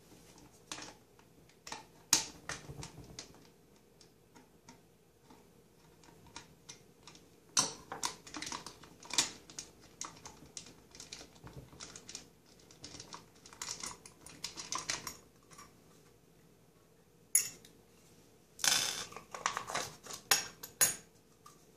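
Clusters of small clicks, taps and scrapes of hard plastic and metal as the white plastic discharge elbow is unfastened and pulled off a garbage disposal's outlet.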